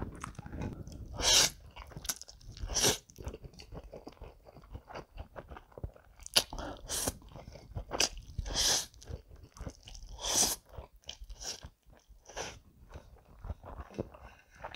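A person eating creamy stir-fried instant noodles close to the microphone: several loud slurps spread through the stretch, with wet chewing and mouth sounds between them.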